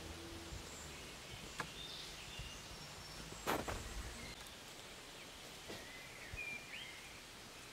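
Quiet forest ambience with a few short knocks and rustles of wooden poles being handled on a pole frame, the loudest about three and a half seconds in; faint bird chirps near the end.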